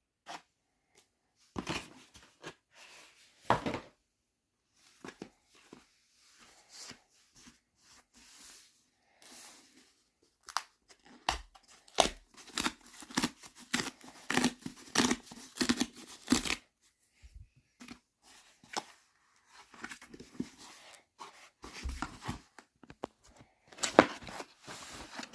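Book packaging being torn open and handled by hand: irregular ripping, rustling and knocks, densest in the middle, with one sharp loud rip near the end.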